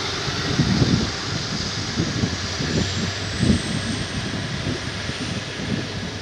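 TCDD MT 15400-series diesel multiple unit pulling away, its underfloor diesel engines running under load as the train accelerates. Irregular low gusts of wind buffet the microphone throughout.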